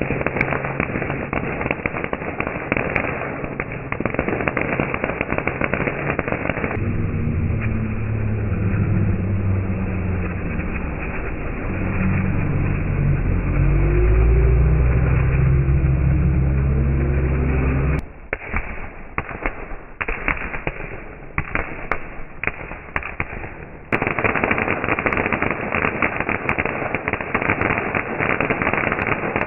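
Ground firework fountains crackling and popping in dense, rapid bursts. Partway through, a deep rumbling drone swells under the crackle. It cuts off suddenly into sparse, separate pops for several seconds, and then the dense crackling returns.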